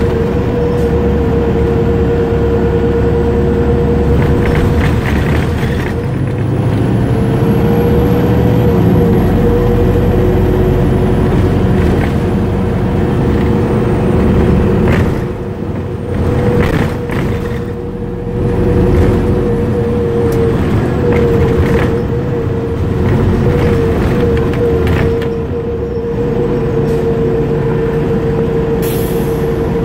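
Interior sound of a 2004 Orion transit bus under way: a steady low engine and road rumble with a strong, slightly wavering high whine over it. The sound dips briefly a few times as the bus eases off.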